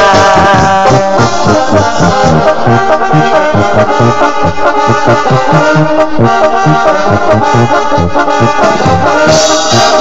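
Instrumental break of a song: brass instruments play the tune over a steady pulsing bass, with shaken percussion coming in near the end.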